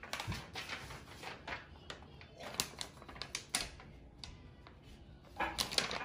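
A sheet of paper being handled: scattered light clicks and taps as a child's paint-covered foot is positioned and pressed onto the paper, with a cluster of taps near the end.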